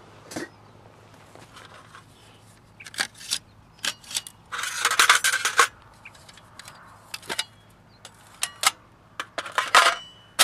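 Hinged metal panels of a Folding Firebox 5-inch camp stove being unfolded and clicked into shape: scattered sharp metal clicks and clacks, with a longer scraping rattle about halfway through.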